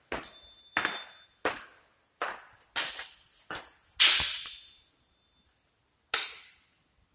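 Footsteps walking at a steady pace on a hard bare floor, about one and a half steps a second, each step echoing briefly in the empty room. The loudest step falls about four seconds in, then there is a pause and a single last step.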